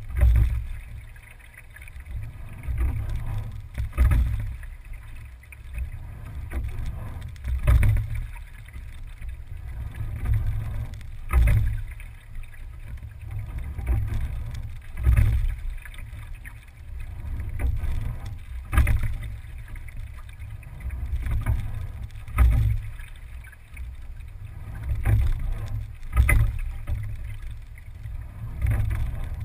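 Single scull being rowed at a steady, easy rate: a sharp knock from the oars in their oarlocks with a surge of water at each stroke, about every four seconds, over a constant low rumble of water along the hull.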